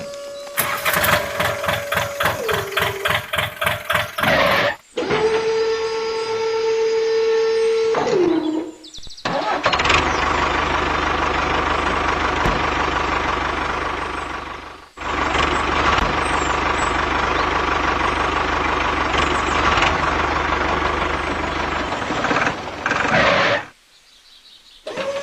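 Engine sounds: a rapid chugging like an engine being cranked and starting, a steady engine note that winds down, then an engine running in two long stretches with a brief break between them.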